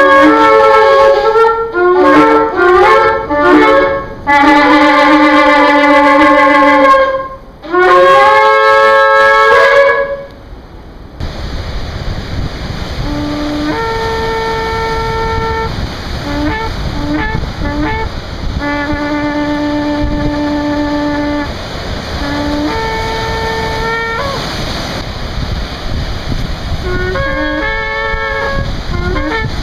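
Ram's-horn shofars blown in a series of blasts: loud, long held notes for about ten seconds. Then quieter blasts over a steady background rush, long held notes alternating with groups of short, quick notes.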